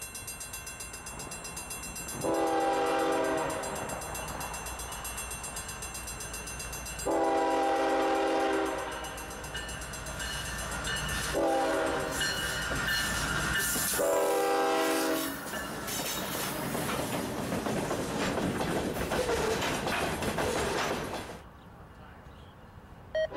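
Iowa Interstate GE ES44AC diesel locomotive sounding four blasts of its air horn as it approaches, with a bell ringing underneath, then the locomotive and loaded potash train rumbling past until the sound cuts off suddenly about 21 seconds in. A short horn note sounds again right at the end.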